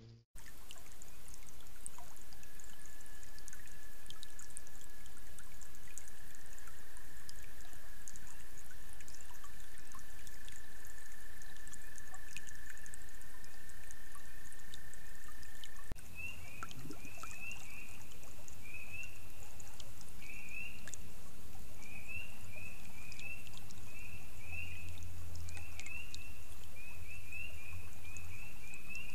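Frogs calling over a steady hiss. First comes one long, unbroken high trill. After a cut, a chorus of short, high, rising peeps follows, about two a second.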